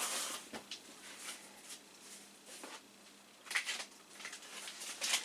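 Faint handling noises: a few light clicks and rustles, the most distinct about three and a half seconds in, as the new motherboard and its packaging are handled.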